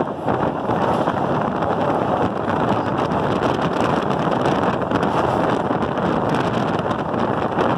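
Frota K metro train running through a tunnel, a steady rumble and rush of wheels on rail and air against the car.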